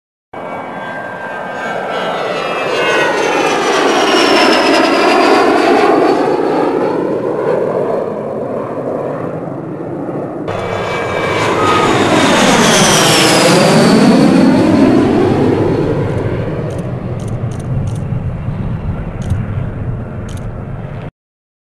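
HondaJet business jet's twin turbofan engines running at power as the jet passes twice, each pass swelling and fading with a high turbine whine falling in pitch. The sound cuts suddenly from one pass to the other about halfway through.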